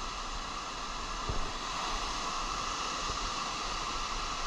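Ocean surf breaking and washing up a sandy beach, a steady hiss, with light wind on the microphone.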